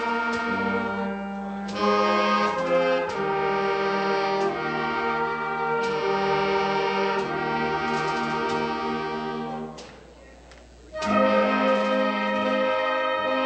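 Wind band of brass, saxophones and clarinets playing a fanfare in sustained chords, breaking off for about a second some ten seconds in, then coming back in together.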